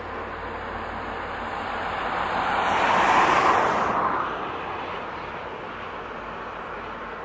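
Steady rolling noise of a passenger train's cars passing at a distance, with a broad whoosh that swells to a peak about three seconds in and fades away by about four and a half seconds.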